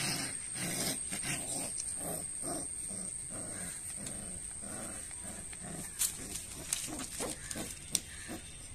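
Rottweiler puppy growling in short bursts, about two a second, while it play-bites a hand. The growls die away after about six seconds, and a few sharp clicks follow.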